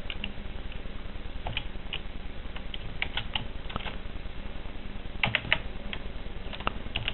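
Typing on a computer keyboard: scattered keystrokes, some single and some in quick little runs, with pauses between them.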